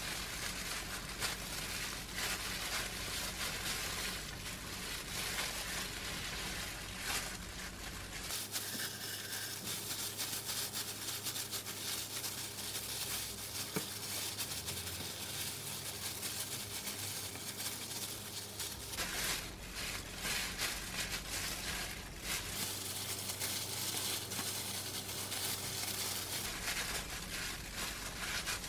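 Crinkling of thin disposable plastic gloves and rustle of dried seaweed sheets as hands press seasoned rice onto the seaweed and roll it up, with small clicks and handling noises throughout.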